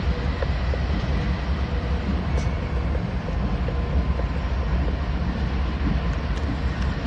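Norfolk Southern diesel-electric locomotives running, a steady deep engine rumble with a few faint ticks.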